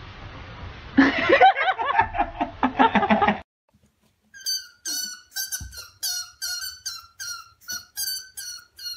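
A loud burst of laughter lasting about two seconds, then, after a short silence, a cornered squirrel squeaking over and over, about three short high squeaks a second.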